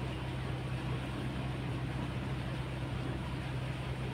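A steady low engine hum running without change.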